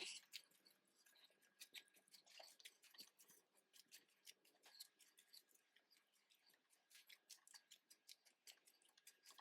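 Faint footsteps in flip-flops: quick, irregular light clicks and scuffs.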